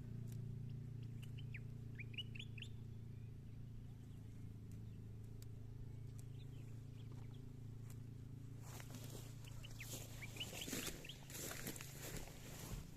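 Birds chirping in short scattered calls over a steady low hum. About two-thirds of the way in, a crackly rustling noise joins and stays loudest near the end.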